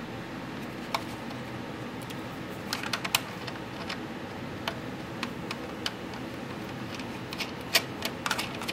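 Scattered small metallic clicks and taps of engine-mount bolts and T-nuts being handled and threaded in by hand against a plywood firewall, a few close together about three seconds in and more near the end.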